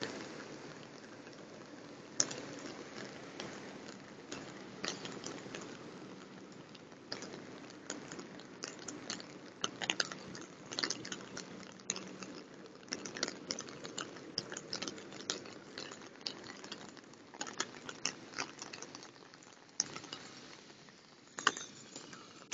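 Rainwater running over a flooded street: a steady rushing with many irregular crackling clicks throughout.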